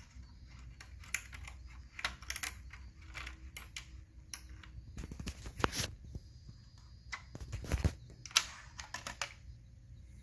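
Irregular clicks, taps and short rustles of hands handling small hard parts and tools, over a low steady hum.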